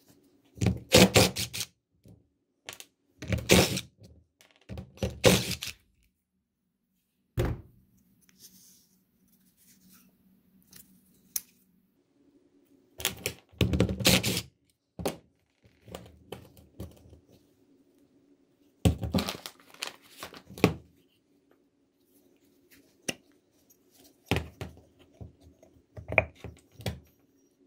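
Cordless DeWalt driver running in short bursts of a second or so, backing out the cover bolts of a Haldex air brake relay valve. Between bursts, a single knock of metal parts on a steel bench.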